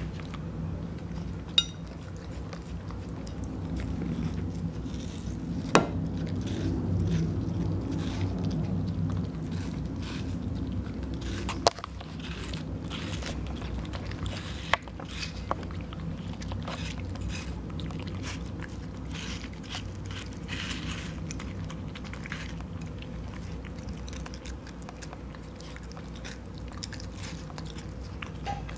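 Corgi puppy chewing and biting watermelon flesh off a plate: steady wet, crackly mouth noises, with a few sharp clicks standing out.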